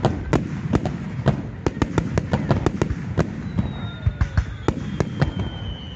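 Aerial firework shells bursting in a rapid, irregular run of sharp bangs and cracks, several a second. A high whistle slowly falls in pitch through the second half.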